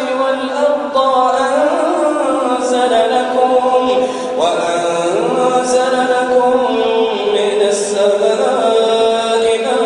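A man's voice reciting the Quran in a melodic, chanted style, drawing out long held notes with slow rises and falls in pitch.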